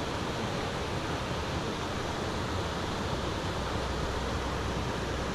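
Steady rushing noise of running creek water and wind, with no distinct events.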